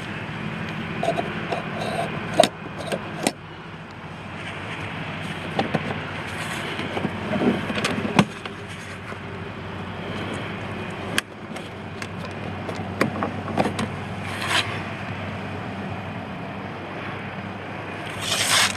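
A plastic motorcycle fairing being handled and turned over by hand: scattered knocks, clicks and scrapes of the shell and its fittings, with some rustling, over a steady low hum.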